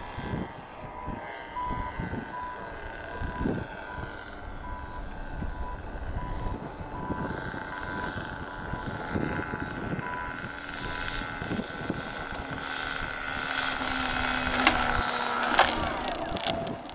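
Hybrid nitro/electric RC airplane's engine droning in flight as it comes in to land, growing louder as it nears, with wind gusting on the microphone. A short electronic beep repeats about every three-quarters of a second for the first ten seconds. Near the end come two sharp knocks as the wheels bounce on touchdown.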